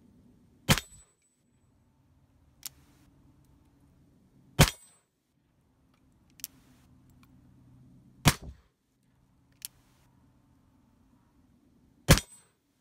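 Pietta reproduction 1851 Colt Navy .36-calibre cap-and-ball revolver firing black-powder loads: four sharp shots about four seconds apart. Between shots there is a quieter click as the hammer is cocked.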